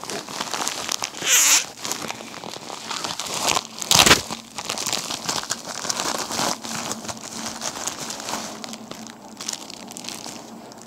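Plastic packaging crinkling and rustling as a package is opened by hand, with two louder crackles, one about a second and a half in and one about four seconds in.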